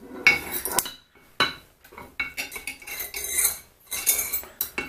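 Small metal vise parts, rings and a spacer ring, clinking and scraping against each other as they are fitted during reassembly: a string of sharp metallic clinks with a short ring.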